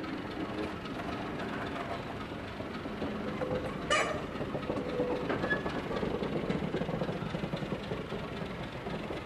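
NSW C38-class steam locomotive 3830 rolling slowly along the track, its wheels and running gear rumbling and creaking on the rails, with a sharp clank about four seconds in and a brief squeal soon after.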